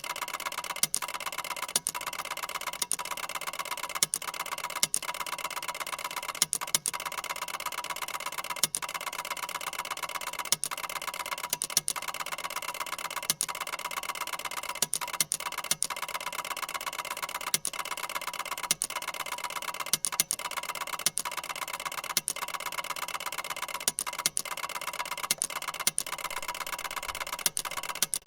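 Ticker tape machine running: its mechanism keeps up a fast, even chatter, with sharper, louder clicks at uneven intervals of about a second.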